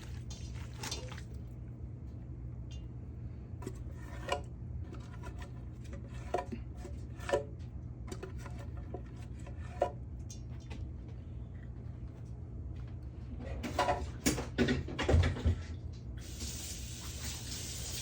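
Kitchen dishes and utensils clinking and knocking now and then, with a louder run of knocks near the end. A steady hiss starts just before the end.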